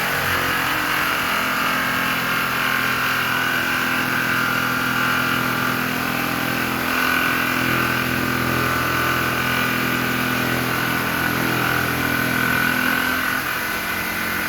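Electric jigsaw running steadily under load, its reciprocating blade making a rough cut through the workpiece.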